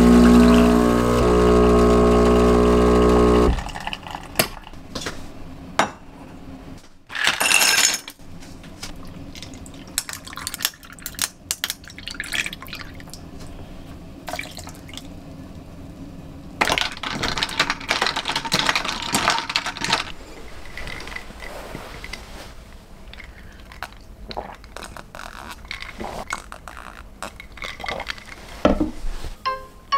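Espresso machine pump humming steadily while a shot pulls into a small glass cup, cutting off about three and a half seconds in. Then glassware clinks and knocks on the counter, a short rush of noise, and espresso poured over milk in a glass.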